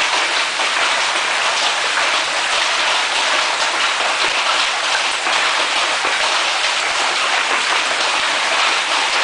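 Heavy hail pelting down, golf-ball-size stones: a dense, steady rattle of countless impacts.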